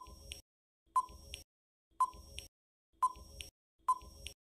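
Quiz countdown-timer sound effect: five short beeps about a second apart, counting down the seconds left to answer.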